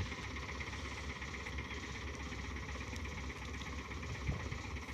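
Tractor-driven chickpea thresher running steadily, the engine hum and the machine's drone unchanging.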